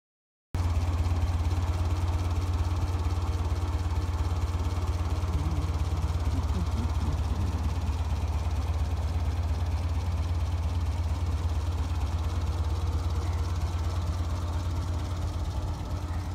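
An engine idling steadily with a strong low-pitched, evenly pulsing note, cutting in abruptly about half a second in.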